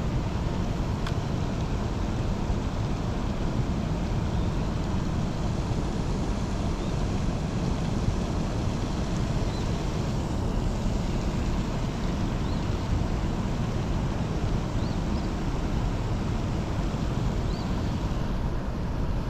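Steady rushing of water in a dam tailwater, an even noise that holds level throughout, with a few faint short high chirps in the second half.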